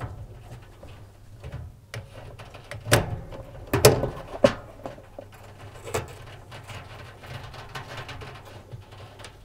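Drive belt being worked off a tumble dryer's spring-loaded jockey wheels and motor pulley by hand. Light knocks and clacks of the tensioner arms and belt come about three to four and a half seconds in and again around six seconds, with quieter handling noise between.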